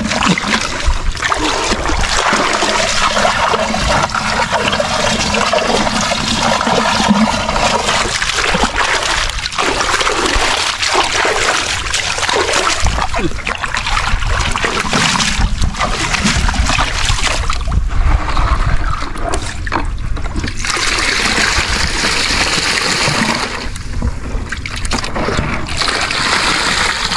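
Water splashing and trickling in irregular splashes, the sound of water being worked by hand in a muddy hole while digging out crabs.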